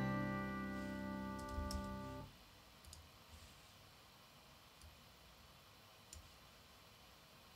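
Playback of a recorded jam track ends on a held chord, which cuts off about two seconds in. A few faint clicks follow.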